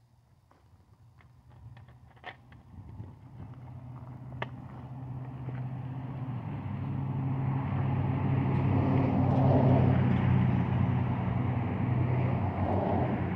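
A motor vehicle driving past unseen: engine hum and road noise swelling to loudest about ten seconds in, then fading. A few light clicks come before it.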